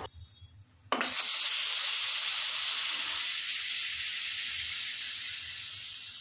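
Aluminium pressure cooker venting steam under its weighted valve: a sudden loud hiss starts about a second in and slowly fades, the cooker having come up to pressure.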